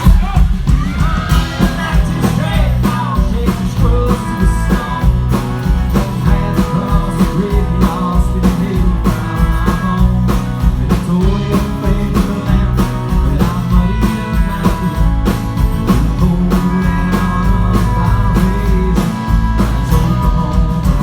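Live rock band playing an instrumental passage: a guitar lead with bending notes over bass and a steady drum beat.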